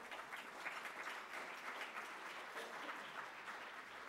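Audience applauding: many people clapping at once in a large hall.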